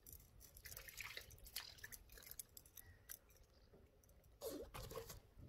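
Faint clicks and rustling as a float rod and its spinning reel are handled while a small fish is brought in, with a louder, brief sound about four and a half seconds in.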